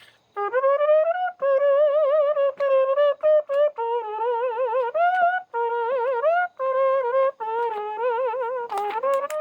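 Mouth trumpet: a person imitating a trumpet with lips and voice, playing a tune as a string of short and held notes, the held ones with a wide vibrato.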